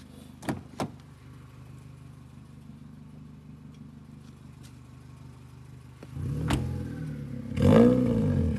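Honda Civic sedan's engine idling, then revved twice near the end, the second rev the louder. Two sharp clicks about half a second in.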